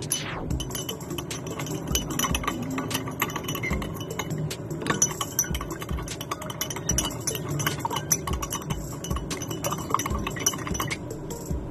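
A spoon stirring sugar into water in a drinking glass, clinking against the glass over and over at an uneven pace of several clinks a second.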